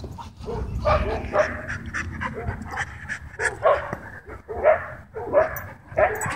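Dogs panting hard at close range during rough play, with several short barks breaking in.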